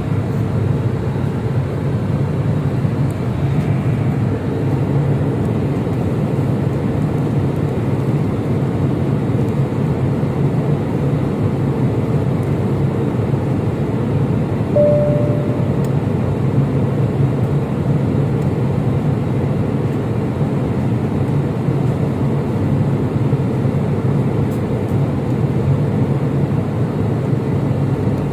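Steady airliner cabin noise, a low drone of engines and airflow, with one brief faint tone about halfway through.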